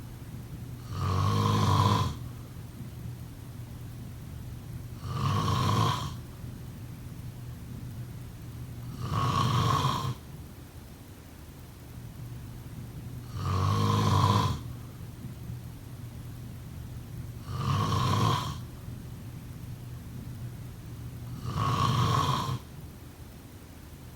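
A person snoring in deep sleep, six snores about every four seconds, each lasting about a second.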